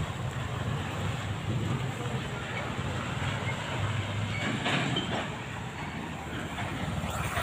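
Mitsubishi Fuso tractor head's 10DC11 V10 diesel engine running with a steady low drone as the truck rolls slowly along a rough, muddy road.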